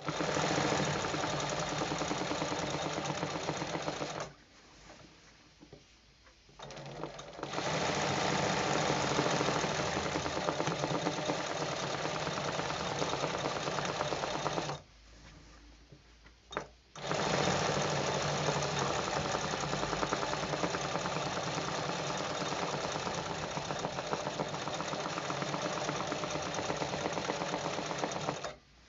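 Sewing machine stitching free-motion machine embroidery, running at speed in three long runs with short stops between them.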